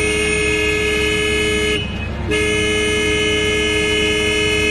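Vehicle horn blown in two long, steady blasts with a two-note tone, with a short break about two seconds in.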